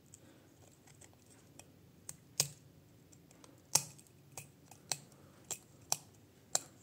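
Small metal tool clicking and scraping against the aluminium circuit board of an LED bulb while prising off a failed LED chip: about eight sharp, irregular clicks, starting about two seconds in.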